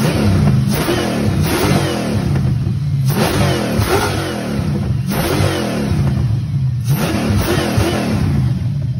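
A car engine being revved over and over, each rev rising and falling about once a second, loud throughout.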